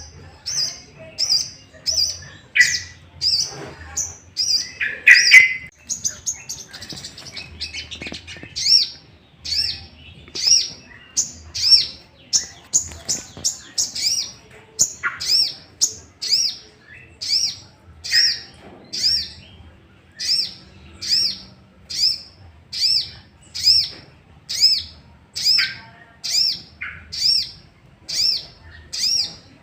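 A sogok ontong (sogon) songbird calling: a fast, even string of short, sharp, high notes, about one and a half a second, with a louder, rougher burst of calls about five seconds in. This is an agitated, challenging call, played to provoke other sogon birds into calling back.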